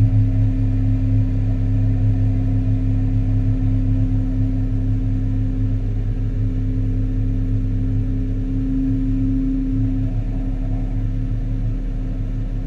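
Diesel engine of a Hyundai 380 long-reach excavator running steadily, an even low drone.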